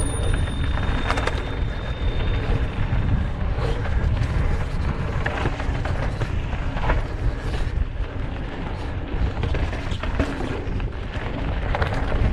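Mountain bike descending a rocky dirt trail: steady wind buffeting and tyre rumble, with scattered knocks and rattles of the bike over rocks and roots. A thin high squeal, typical of disc brakes, fades out about a second in.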